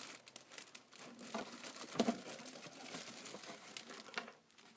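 Cardboard and packing material crinkling and rustling as a hat is taken out of its box, with many small crackles and scrapes.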